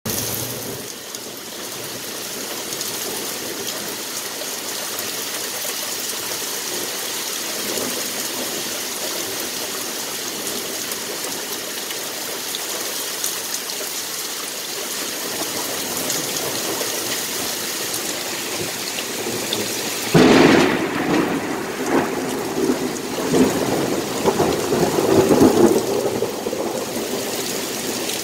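Steady rain falling on leafy trees. About twenty seconds in, a loud thunderclap breaks suddenly, then rumbles in waves for about six seconds before the rain alone continues.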